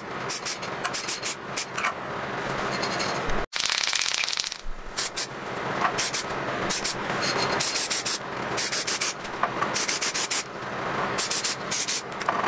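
Aerosol spray can of gloss black paint hissing in repeated short bursts, spraying a light dust coat onto a motorcycle starter motor.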